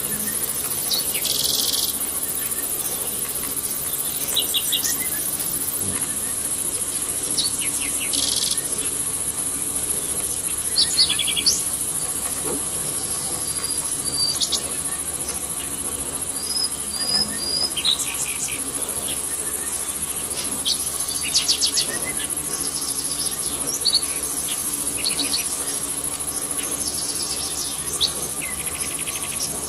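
Insects calling in a steady, high-pitched, unbroken drone, with short bird chirps and trills now and then.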